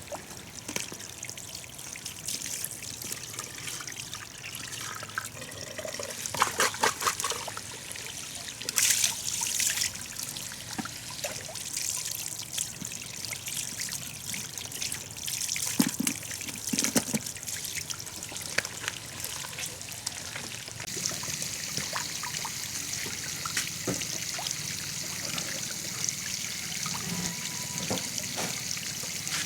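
Water trickling steadily, with scattered light clicks and knocks.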